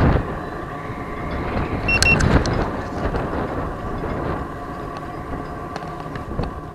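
Wind buffeting the microphone in a steady low rumble, easing towards the end. About two seconds in there is a short high beep with a few clicks.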